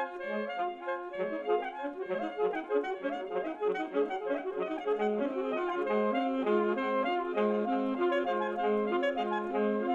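Alto saxophone playing short notes run through live computer delay processing, so that many copies of the line overlap into a dense, repeating web of saxophone pitches.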